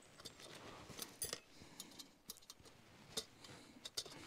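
Faint, scattered metallic clicks and clinks of small hooked rods being hooked onto the metal mesh of a folding fire pit grill.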